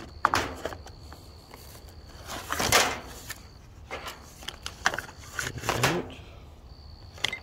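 Unboxing handling noise: hands moving cardboard packaging, paper and plastic string-trimmer parts, giving scattered clicks and knocks with a longer rustle about two and a half seconds in.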